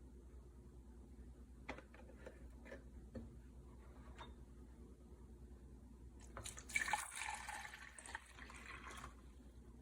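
A few faint light clicks, then water running for about two seconds, starting about seven seconds in.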